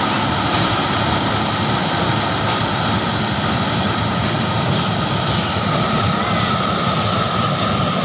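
Jindafeng self-propelled corn harvester running steadily while it cuts standing maize: a loud, unbroken engine and machinery drone with a faint steady high whine.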